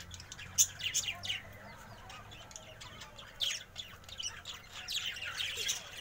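A flock of budgerigars chattering: many quick, overlapping chirps and warbles, with one sharp louder chirp about half a second in.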